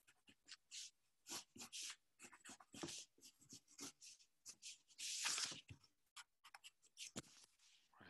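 Faint scratching of a pencil sketching on paper: many short strokes, with a longer one about five seconds in.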